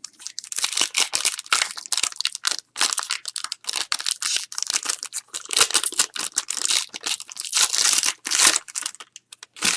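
Trading card pack wrappers being torn open and crinkled in the hands, a continuous irregular crackling and rustling.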